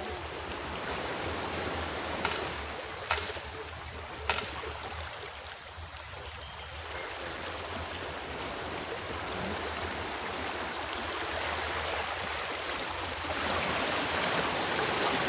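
Steady rush of surf washing onto a sandy beach, growing a little louder near the end, with a few light sharp clicks in the first half.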